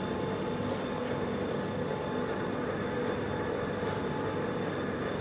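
Baader 694 meat-bone separator running steadily while separating cod into fish mince: an even machine hum with a few faint ticks.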